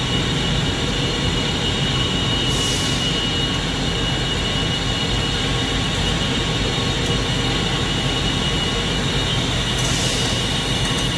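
Steady machinery noise with a constant high-pitched tone running through it, broken by two short hisses, one about two and a half seconds in and one near the end.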